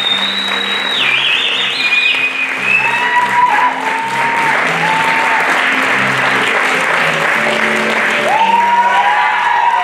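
Theatre audience applauding and cheering, with a shrill whistle in the first couple of seconds and whoops later on, over curtain-call music.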